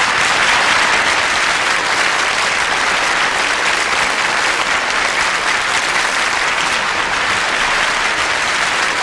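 Studio audience applauding: sustained, loud clapping of many hands.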